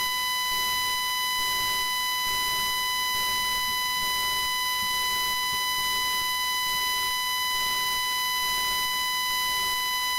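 Steady high-pitched feedback tone from a failed microphone, holding one pitch with its overtones and not changing.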